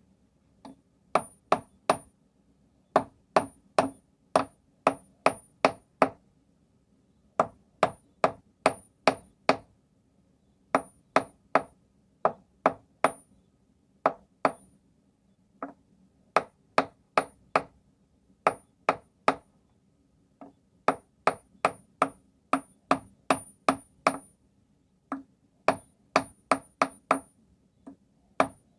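Hand hammer forging hot steel on a stake anvil with a carbon tool-steel face. The blows come in runs of about three to seven, roughly three a second, with short pauses between runs, and each blow gives a short high ring.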